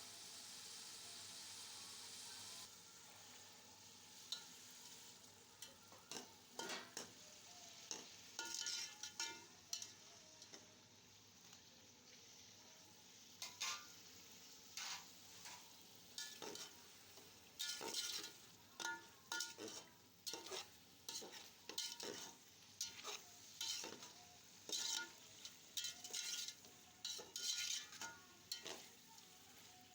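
Food sizzling as it fries in oil in a cooking pot. After about three seconds a spoon starts stirring it, scraping the pot in quick, irregular strokes one to two times a second.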